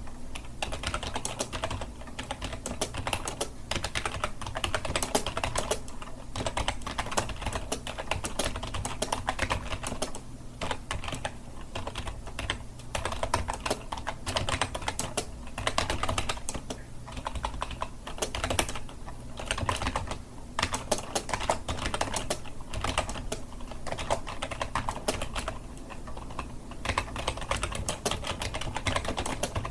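Continuous fast typing on a computer keyboard, a dense stream of key clicks with brief pauses between runs.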